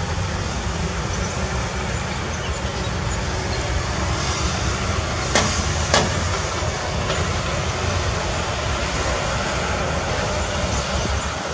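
Heavy diesel earthmoving machinery running steadily, with two sharp clanks about half a second apart a little past the middle.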